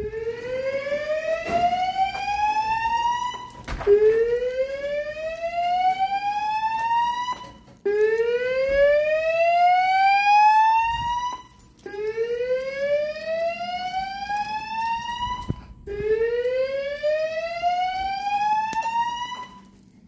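Fire alarm voice evacuation system on a Notifier NFS2-3030 panel with DVC, sounding the whoop evacuation tone through wall speaker strobes. Five rising whoops, each climbing steadily for about three and a half seconds, with a short break between them.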